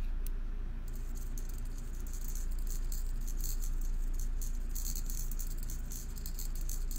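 Small magnet rattling in the clear cup on top of a Qi Coil as the coil is driven by a frequency signal. From about a second in there is a fast, uneven patter of tiny clicks, over a steady low hum.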